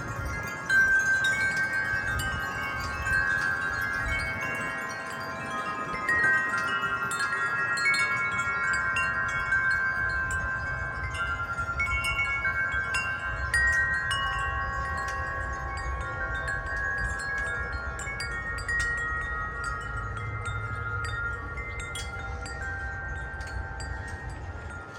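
Wind chime ringing in gusty wind: many overlapping notes struck again and again, each ringing on for seconds, over a low rumble of wind.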